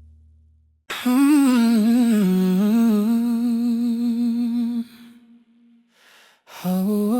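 The last chord of one song fades away. Then an unaccompanied AI-generated R&B voice hums a slow, wavering melody for about four seconds, pauses briefly, and starts a second hummed phrase near the end.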